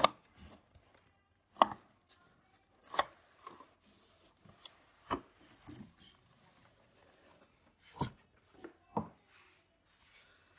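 A cardboard toy box and its packaging being opened and handled: rubbing and scraping, with about six sharp knocks spread through it.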